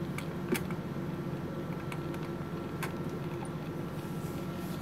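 Steady hum of a running BD FACSAria cell sorter with a faint high steady tone. A tissue wiping its plastic collection device makes a few light clicks and taps, the sharpest about half a second in and another near three seconds.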